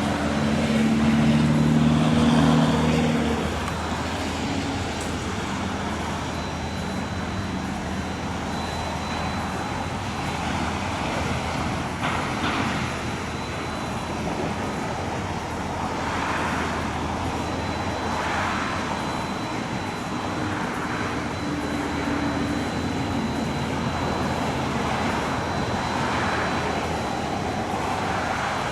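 Steady outdoor road-traffic and heavy engine noise. A low engine hum is loudest in the first three seconds, then softer swells come and go every couple of seconds.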